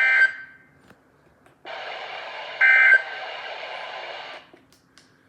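Weather radio SAME data tones: two short, loud, buzzy two-tone bursts about two and a half seconds apart, over radio hiss that drops out between them. They are the end-of-message code that closes a National Weather Service warning broadcast.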